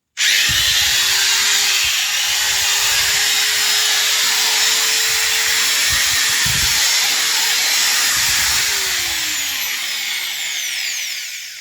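Bosch GWS 600 670-watt angle grinder switched on and running with no load: it spins up with a high whine, dips briefly and recovers about two seconds in, runs steadily, then is switched off about eight and a half seconds in and winds down with a falling whine.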